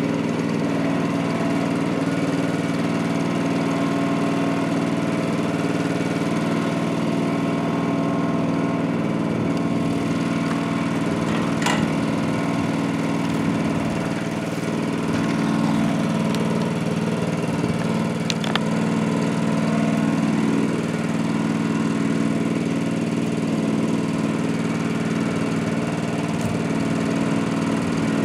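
Engine of a small homemade dump truck idling steadily, with two sharp clicks about midway through.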